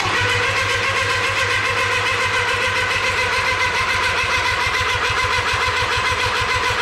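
Starter of a Kubota G6200 diesel lawn mower cranking the engine steadily without it catching: a steady whine over quick, even pulses that stops after several seconds. It is a cold diesel failing to fire, which the owner puts down to the glow plugs.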